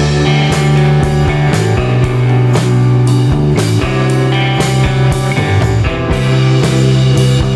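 Background rock music with guitar, a sustained bass line and a steady drum beat, about two hits a second.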